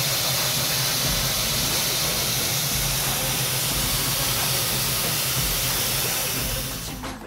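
Class L (Л-0022) steam locomotive standing and venting steam: a loud, steady hiss with a low hum beneath it, fading away near the end.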